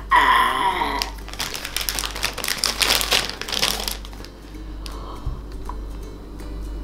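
A short, strangled mock-choking noise from a boy, then a few seconds of crinkling from a plastic toy blind-bag packet being handled, dying down to faint rustles and clicks.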